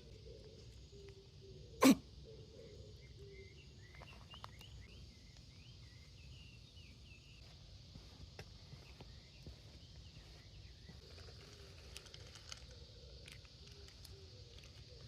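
A cat sneezes once, sharply, about two seconds in, then purrs softly and steadily.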